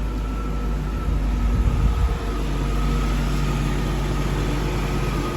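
BMW E38 engine idling steadily with its revs still a little raised; the owner is listening for a very faint tick that he suspects is a hydraulic lifter.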